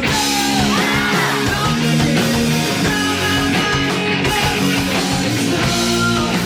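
Rock band playing live, with electric guitars to the fore, at a steady loud level throughout.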